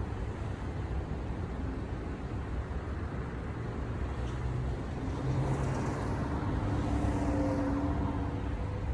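Aircraft passing overhead, unseen above the clouds: a steady low rumble, with a faint drone that comes in about halfway through and slides slightly down in pitch.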